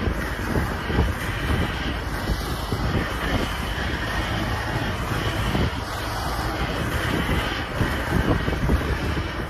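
Wind buffeting the microphone over the steady road rumble of a car driving at about 60 km/h.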